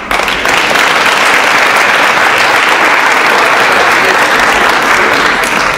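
Audience applauding steadily, a hall full of people clapping, dying down at the very end.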